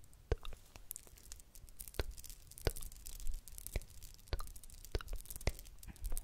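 Close-miked ASMR mouth sounds: kisses and wet lip smacks into the microphone, about ten sharp pops spaced unevenly.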